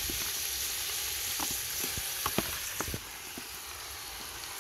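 Pieces of goose sizzling as they fry in oil with lemongrass in an aluminium pot over a wood fire, a steady hiss with a few sharp pops. The sizzle eases a little about three seconds in.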